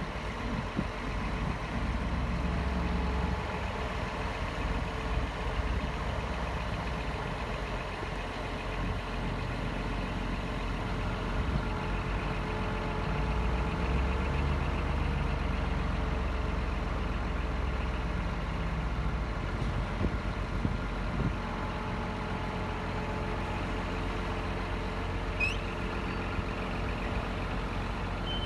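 Scania R420 truck's straight-six diesel engine running steadily to power the loader crane's hydraulics while the boom is moved, with a faint steady hydraulic whine over it. The engine note swells slightly partway through.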